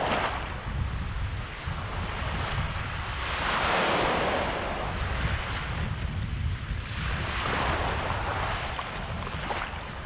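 Small waves breaking and washing up a sandy beach, the surf rising and falling every few seconds, with wind rumbling on the microphone.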